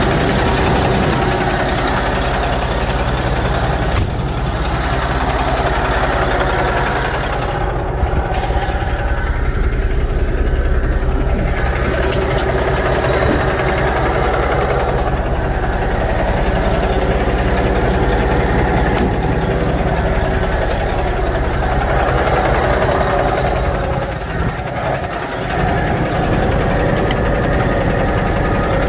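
Kenworth T660 semi truck's diesel engine idling steadily, with the loudness dipping briefly near the end.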